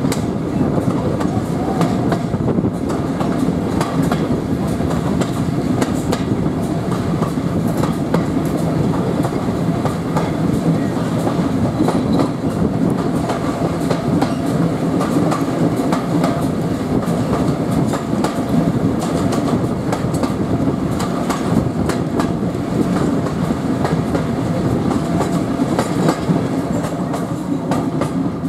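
Passenger carriage of a steam-hauled heritage train running along the line: a steady rumble with wheels clicking over the rail joints, heard at an open carriage window.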